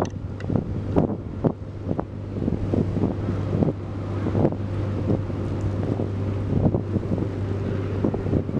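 Wind buffeting the microphone in irregular gusts, over a steady low hum.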